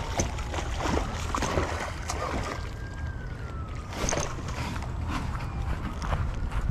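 A hooked fish splashing at the water's surface while a baitcasting reel is cranked, with irregular clicks and knocks from handling the rod and reel over a steady low rumble.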